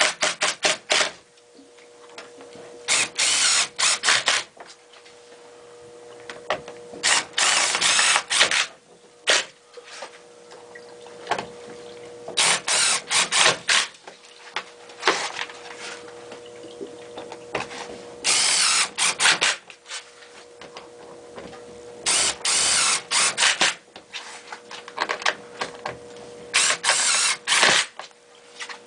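Power drill/driver running in short bursts of about a second, roughly every four seconds, driving screws to fasten the new Covana 1 seal in place.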